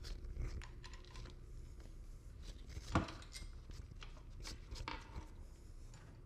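Faint handling noises: small clicks and scrapes of a metal kickstand being held against an e-bike frame while its two mounting screws are started by hand, with one sharper click about three seconds in.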